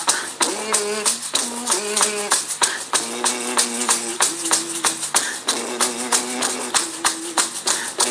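Frame drum and a large upright drum struck with padded beaters in a fast, steady beat, with a voice chanting long held notes over the drumming.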